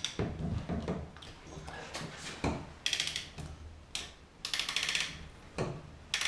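PEX cinch-clamp tool working a steel clamp onto a brass PEX fitting: a string of metallic clicks and clacks, with two short runs of rapid clicking about three and five seconds in.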